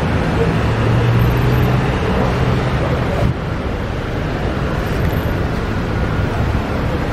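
Road traffic at a busy city intersection: cars and scooters running and passing close by. A low engine hum from a nearby vehicle stops suddenly about three seconds in.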